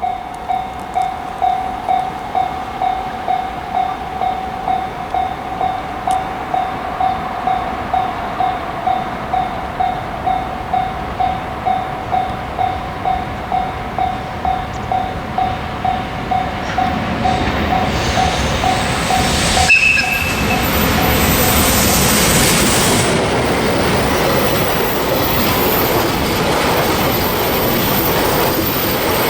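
Japanese level-crossing warning bell dinging in a steady, even rhythm as an Ainokaze Toyama Railway train approaches. The train's rumble builds from about two-thirds of the way in. A brief high tone sounds as it reaches the crossing, and then the train's running noise covers the bell.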